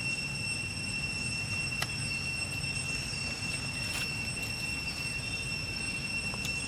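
A steady, high-pitched insect drone, typical of cicadas, with a low rumble beneath it and a few faint clicks.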